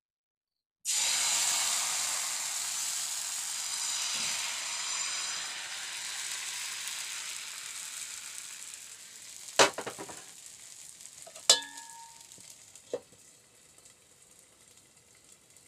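Chakuli pitha batter of ground arua rice sizzling on a hot pan. The sizzle starts suddenly about a second in and slowly dies down. Later there are three sharp metal clanks, the second ringing briefly.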